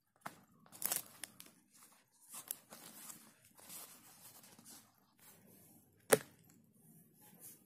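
A brown leather-look mobile waist pouch being handled: its material rubs and rustles under the fingers as it is turned over and its flap moved, with a single sharp click about six seconds in.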